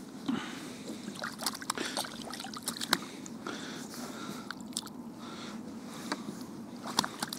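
Small splashes and water sloshing as perch and zander move about in a landing net held in the water beside a kayak, with irregular clicks and rustles from hands handling the fish in the mesh.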